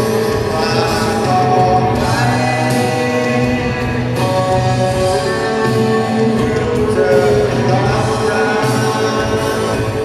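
Live rock band playing: electric guitars and drums with a sung vocal line over them.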